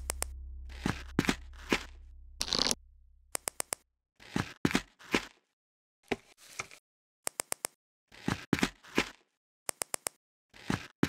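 A held low music note fades out over the first four seconds. Through it and after it come short plastic clicks and scraping snaps of Lego minifigure parts being pressed together, in quick groups of two to four.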